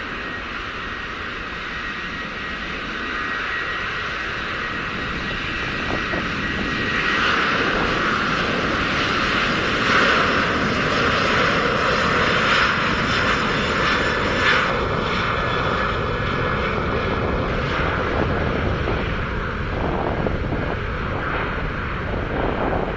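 Airbus A330-300 jet engines at takeoff thrust, a steady roar that swells to its loudest in the middle and eases off near the end. A thin high whine runs under it at first and fades about seven seconds in.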